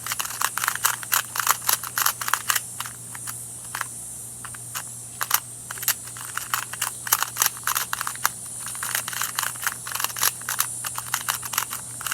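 A new Rubik's cube being turned quickly through a J-perm algorithm to test how it turns: rapid, irregular plastic clicks and clacks as its layers snap round, several a second with short pauses.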